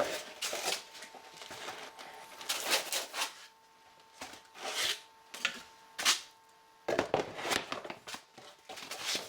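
Irregular rustling and handling noises of packaging and parts being taken out of a box, in a series of short scrapes and crinkles, with a faint steady hum underneath in parts.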